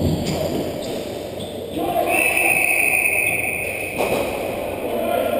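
A referee's whistle blown in one long, steady blast about two seconds in, fading out by about four seconds, over background voices and noise in the lacrosse arena.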